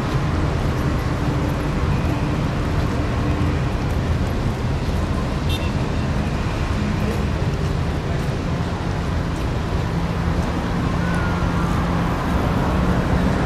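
Outboard motors of several rigid inflatable rescue boats running at speed, heard as a steady drone with slowly shifting pitch under a noisy wash of wind and harbour background.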